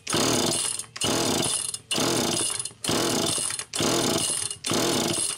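Homelite Super EZ chainsaw's two-stroke engine cranked over by its pull-starter rope, six pulls about a second apart, turning over without catching while the Walbro carburettor is primed with fuel.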